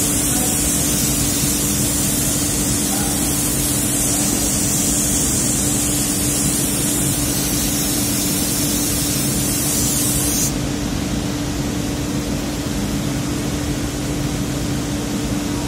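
Gravity-feed air spray gun hissing steadily as it sprays paint, cutting off suddenly about ten seconds in. Under it, a steady machine hum with one constant low tone.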